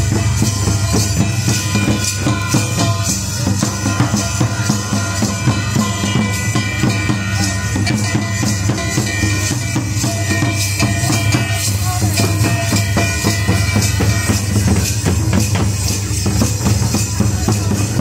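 Loud festival music: drums beating a fast, steady rhythm with jingling percussion over it, and a steady low hum beneath.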